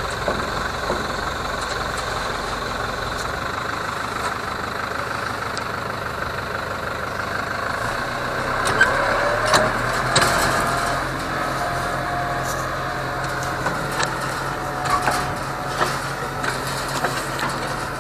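Tractor-driven Aktaş pumpkin seed harvesting machine running steadily, its engine and machinery making a continuous drone. About halfway through a whine rises and then holds, with scattered sharp ticks and rattles over it.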